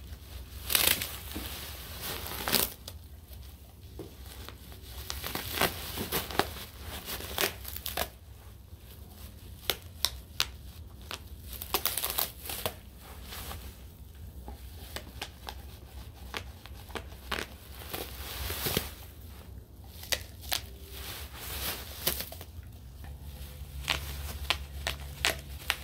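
German Shepherd biting and tearing at bubble wrap: plastic crinkling and rustling, broken by sharp pops of bubbles bursting at irregular intervals.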